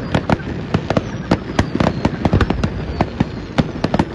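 Fireworks going off in a rapid, irregular string of sharp bangs, several a second.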